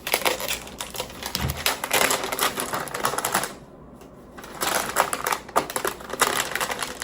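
Packaging of a toy mini fridge being handled and torn open: dense, rapid crackling and clicking, with a short lull a little past the middle.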